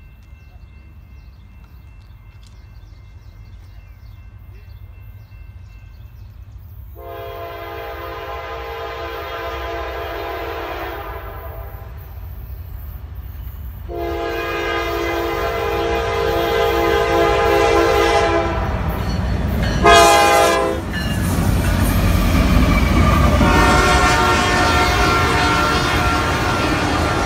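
Diesel locomotive air horn sounding two long blasts and a short one, the pattern that opens the long-long-short-long grade-crossing signal, growing louder as the train approaches. The rumble of the train builds under the horn and carries on loud as it passes, with more horn sounding near the end.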